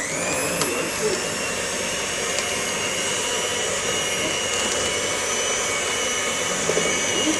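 Electric mixer motor speeding up at the start, then running steadily as it mixes flour, sugar and butter into shortbread dough, and switched off abruptly at the very end.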